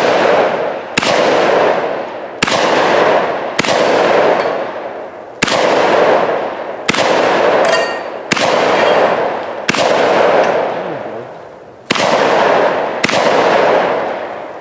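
Vepr-12 semi-automatic 12-gauge shotgun fired nine times at a steady pace, about one shot every one and a half seconds, each shot trailing off in a long echo. A steel target rings after a hit about seven to eight seconds in.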